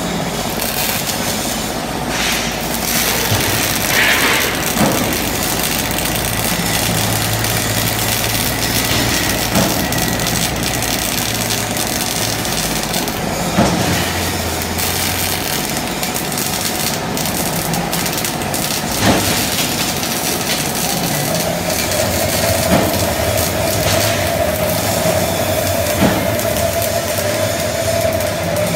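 Steady machinery noise in a steel-fabrication workshop, with occasional short knocks, as a robotic welding arm moves between welds on carbon-steel parts. A steady hum comes in about two-thirds of the way through, and the robot's welding arc is struck near the end.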